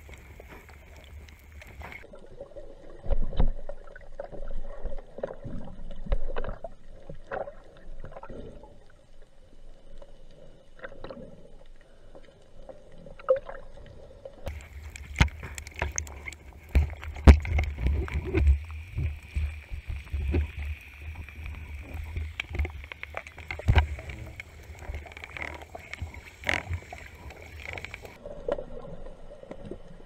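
Underwater sound through an action camera's waterproof housing: muffled water noise and low rumble with scattered sharp clicks and knocks. From about the middle to near the end the rumble gets louder and the clicks come more often.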